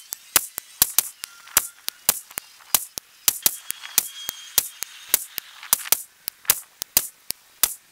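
Rapid run of sharp, thin cracks, about four a second: .223 AR-15 rifle shots played sped up, so each one lacks its usual low boom.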